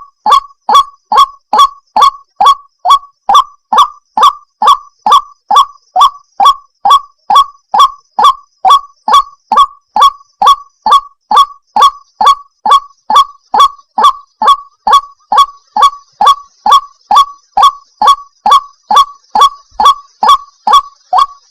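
White-breasted waterhen (ruak-ruak) calling over and over in a steady rhythm, about two short, sharp notes a second, each dipping slightly at its end. This is a lure recording played to draw in waterhens.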